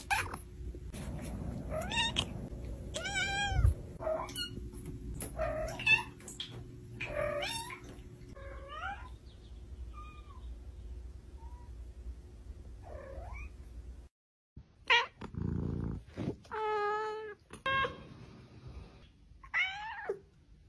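Cats meowing: a string of short, wavering meows, then after a brief gap a few longer, drawn-out meows.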